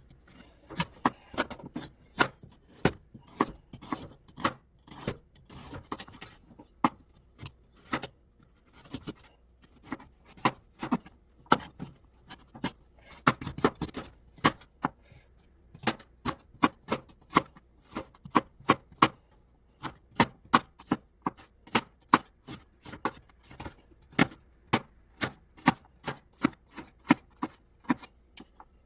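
Kitchen knife chopping on a cutting board: a long run of sharp knocks, several a second, coming in uneven runs with short pauses.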